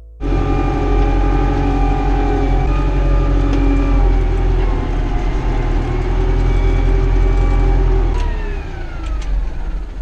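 Deutz-Fahr Agroplus 85 tractor engine running at high revs, heard from inside the cab, with the engine note falling as the revs drop after about eight seconds.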